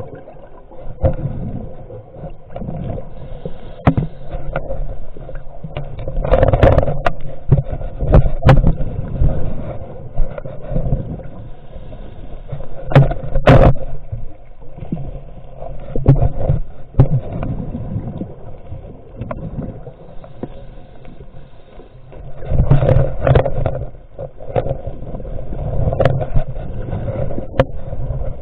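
Muffled underwater rumble with irregular knocks and scrapes, as picked up by a camera in a waterproof housing near the seabed.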